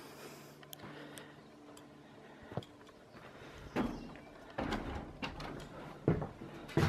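Footsteps on the wooden deck and floorboards of a small hut, a thud every second or less, with a single sharp knock a couple of seconds before them.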